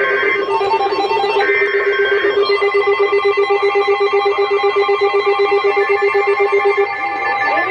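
NOAA Weather Radio SAME alert header: two short bursts of warbling digital data tones, the end of the header that opens a new warning. A steady attention tone follows. Under it a low buzzing tone pulses about eight times a second and cuts off about seven seconds in.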